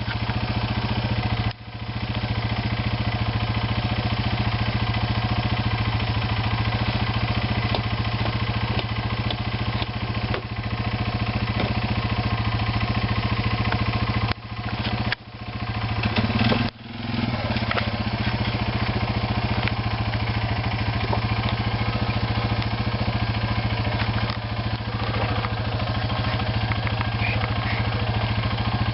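ATV engine running at a steady, unchanging speed. The sound drops out suddenly and briefly a few times.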